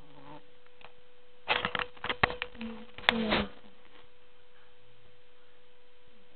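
A sleeping dog snoring: a cluster of loud, buzzy snorts between about one and a half and three and a half seconds in, over a faint steady hum.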